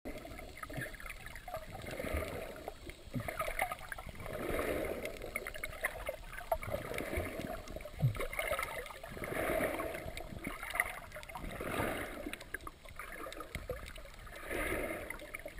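Muffled river water gurgling and swishing around an underwater camera, swelling about every two to three seconds, with a few sharp knocks.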